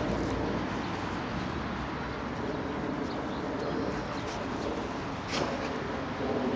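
Birds calling faintly over a steady outdoor background, with one short sharp sound about five seconds in.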